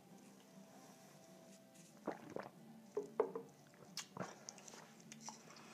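Quiet mouth sounds of someone tasting a drink: a few sips and swallows from about two seconds in, loudest around three seconds. About four seconds in comes a sharp click as a drinking glass is set down on the tabletop.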